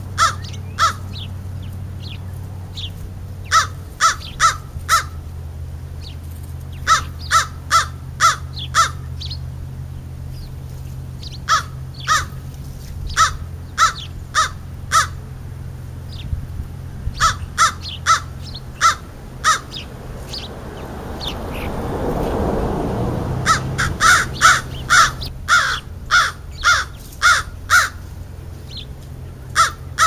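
A crow cawing in runs of three to six short caws, again and again. A rushing sound swells and fades about twenty-two seconds in, over a steady low hum.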